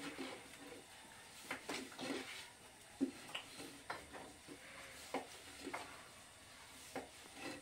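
Long, thin rolling pin working flatbread dough on a round wooden board, with irregular light knocks and clacks of wood on wood; one sharper knock about three seconds in.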